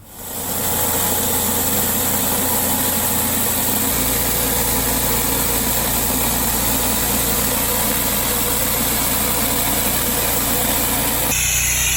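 Pressure washer running: a steady engine drone under the loud hiss of the high-pressure water jet on concrete. The sound changes abruptly about four seconds in and again near the end.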